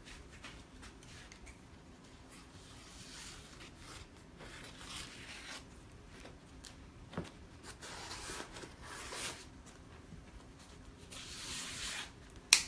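Soft rustling, ripping and cutting of paper stabilizer being trimmed and torn away from an embroidered fabric piece, in several short spells. A sharp click comes just before the end.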